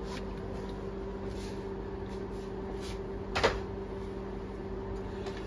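Steady mechanical hum in a small kitchen, with one sharp knock about three and a half seconds in, as of a pan or cupboard being handled.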